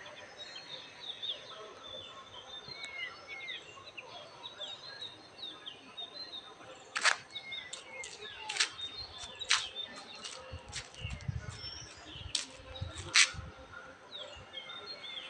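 Small birds chirping, with many short calls that glide up and down. In the second half comes a run of about a dozen sharp clicks, louder than the birdsong.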